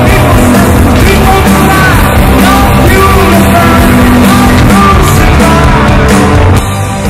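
Loud rock song with a singing voice over a full band; the level drops slightly near the end.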